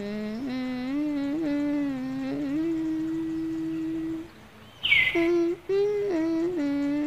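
A voice humming a slow tune in long, held notes, pausing briefly just after four seconds in. A short falling chirp sounds about five seconds in.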